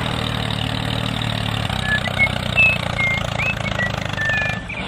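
Tractor engine running steadily at low revs, with a few short high chirps in the second half.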